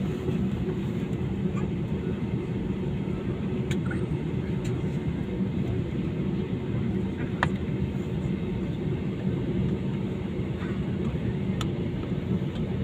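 Steady drone of a passenger airliner heard from inside the cabin: engine and airflow noise with a low hum, broken by a few faint clicks.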